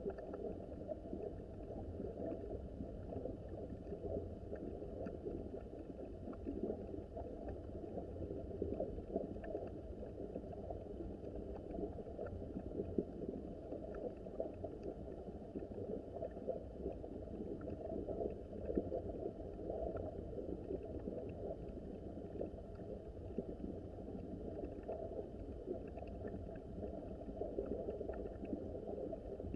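Small mountain stream flowing, a steady low gurgle of running water.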